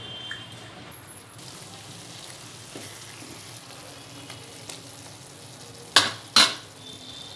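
Chicken and chana dal curry sizzling in a pan while a spatula stirs it, a steady hiss. Near the end come two sharp knocks close together.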